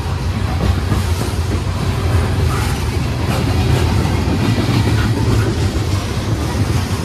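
A string of Norfolk Southern open-top hopper cars rolls past close by: a steady low rumble of steel wheels on rail, with scattered clicks and clacks.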